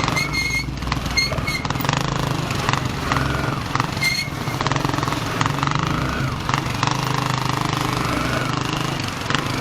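Kawasaki motorcycle engine running steadily under the rider. A few short high-pitched beeps come in the first two seconds and again about four seconds in.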